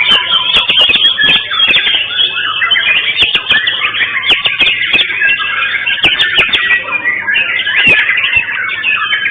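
Caged white-rumped shamas (murai batu) singing at once in a contest, a dense, overlapping chorus of rapid whistles, trills and chirps with scattered sharp clicks.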